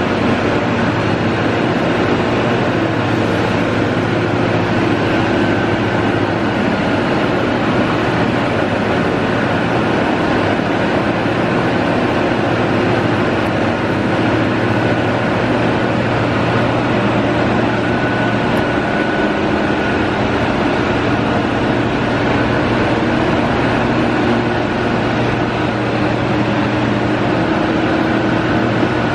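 Steady machine running noise: a constant low hum with a faint high whine over a noisy hiss, unchanging throughout.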